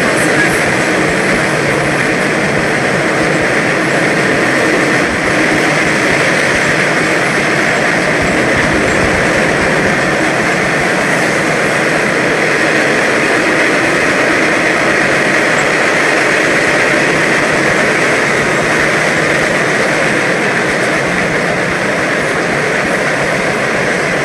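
MBTA Orange Line subway train running, a steady, unbroken rail noise of wheels on track and car running gear.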